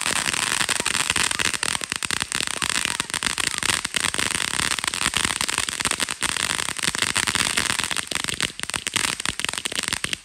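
Ground fountain firework spraying sparks: a continuous hiss packed with rapid, irregular crackling pops.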